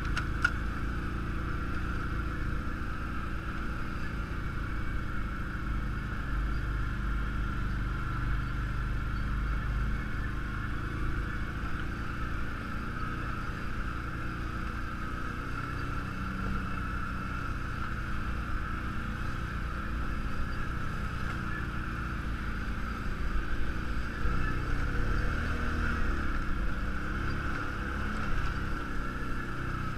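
Off-road vehicle's engine running steadily at low speed on a rough trail, a low rumble with a steady high whine over it.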